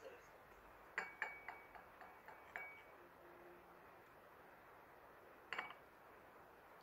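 Chopsticks clinking against ceramic dishes: a quick run of light clinks about a second in, some leaving a short ring, then two more clinks close together near the end.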